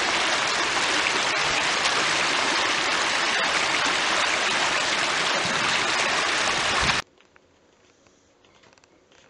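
Creek water rushing over rocks in a small cascade, a steady loud rush that cuts off abruptly about seven seconds in, leaving only faint room noise.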